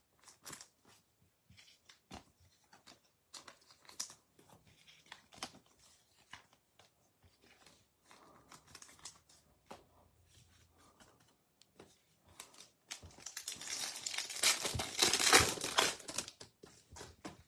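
Foil trading-card pack wrapper being torn open and crinkled, loudest from about thirteen seconds in, after scattered light clicks of cards being handled.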